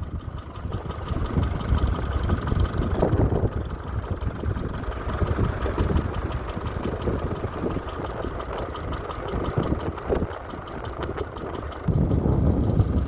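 McCormick International B275 tractor's four-cylinder BD-144 diesel engine running steadily. Wind starts buffeting the microphone near the end.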